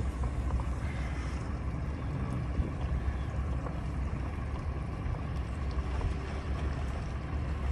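A boat's engine idling with a steady low rumble.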